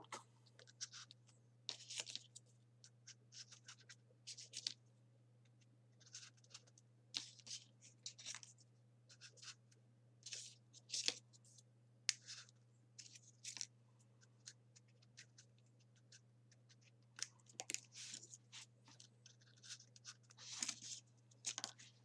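Folded printer-paper 3D origami units being slid into the pockets of a paper model: faint, short papery scratches and rustles at irregular intervals.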